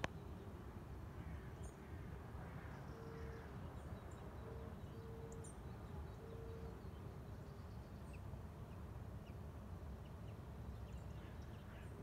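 Faint outdoor ambience: a low steady rumble with scattered small bird chirps, and a few short level-pitched notes near the middle.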